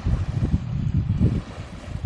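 Strong gusting wind buffeting the microphone, an uneven low rumble that swells and drops with each gust.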